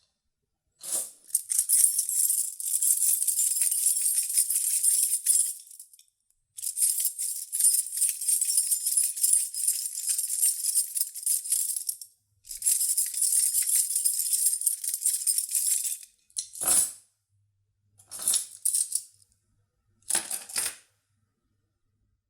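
A bunch of keys jingling as it is shaken: three long runs of rattling, then three short jingles near the end.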